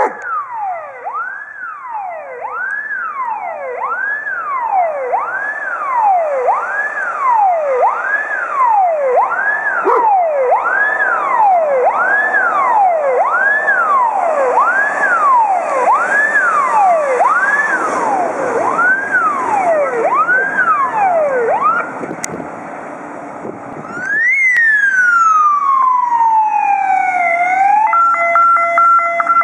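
Fire engine's electronic siren wailing, rising and falling about once every 1.2 seconds, as the Tatra 815 fire truck approaches on an emergency run. After a short lull a siren sweeps down once in one long fall, and near the end a steady horn tone of several pitches sounds.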